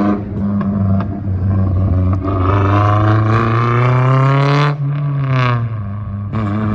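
Honda S2000's four-cylinder engine through a loud custom single-exit exhaust, accelerating hard: the pitch climbs steadily for several seconds, drops sharply at a gear change, climbs again and drops at another shift near the end.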